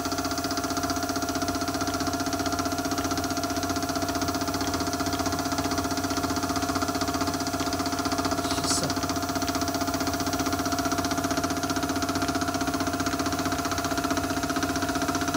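CTV36 drill-milling machine running steadily, its motor and geared head giving an even hum with a high whine. A short hiss comes about eight and a half seconds in.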